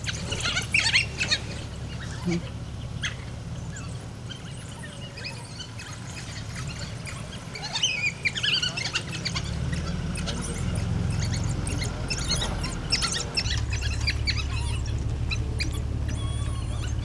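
Pack of African wild dogs twittering: bursts of short, high-pitched chirping and squealing calls, clustered near the start, about halfway through and again later, over a steady low hum.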